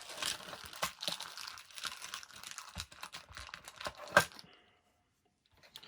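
Small electronics parts and wires being handled: rustling with many light clicks, and one sharper click about four seconds in.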